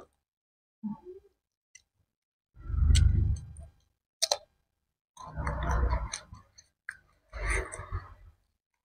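Crisp unripe green mango being bitten and chewed close to the microphone. A loud crunching bite comes about three seconds in, followed by bursts of wet, crunchy chewing a second or so apart.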